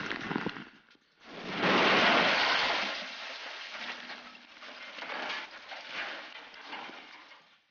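Explosive demolition of a missile launch-facility silo: a noisy blast swells about a second and a half in, then dies away over several seconds with uneven bumps as debris comes down. Before it, the fading tail of another blast ends within the first second.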